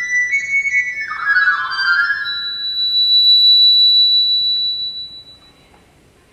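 Wind controller played through a Yamaha WT11 tone generator: a quick run of high synthesized notes, a brief thicker cluster of notes about a second in, then one very high note held for about two and a half seconds that fades away, leaving near quiet at the end.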